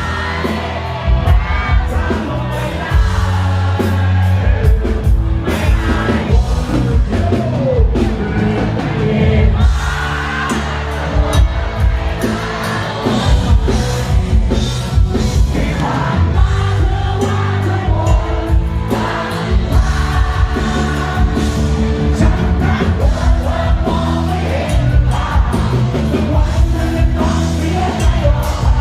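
Live band playing a song with a singer over bass and drums, the drums beating steadily.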